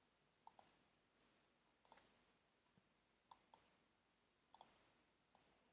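Faint clicks of a computer mouse, some single and some in quick pairs, spaced a second or so apart.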